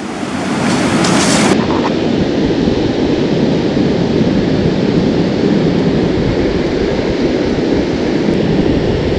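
Ocean surf washing up onto a sandy beach. About a second and a half in it gives way to a steady rush of wind on the microphone over the surf.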